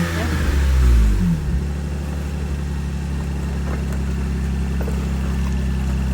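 Lexus IS300's 2JZ-GE inline-six falling back from a rev over the first second and a half, then idling steadily. It is being run to check a freshly replaced exhaust gasket for leaks.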